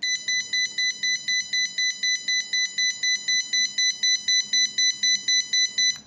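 Piezo buzzer driven by an FPGA burglar-alarm circuit, set off by the guarded object being lifted away: rapid electronic beeping, about five beeps a second alternating between two pitches. It starts suddenly and cuts off when the reset button is pressed.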